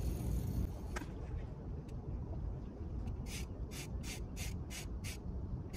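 Fishing reel being cranked to take up line after a cast: a rasping whir repeating about two to three times a second, starting about three seconds in, over a low steady rumble of wind on the microphone.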